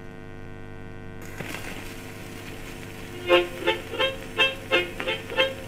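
A 78 rpm shellac record playing on a Garrard 202A electric phonograph. There is a steady hum, then about a second in the needle settles into the groove with a faint click and surface hiss. A bit over three seconds in, a harmonica tune starts, with chords pulsing about three times a second.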